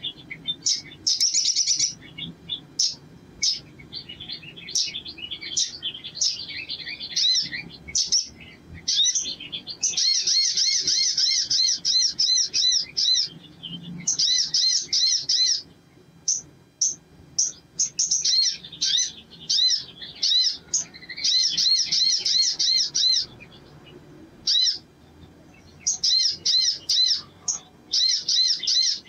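Male olive-backed sunbird singing: fast trills of rapidly repeated high notes, each lasting one to three seconds, several times over, with sharp single chirps between them.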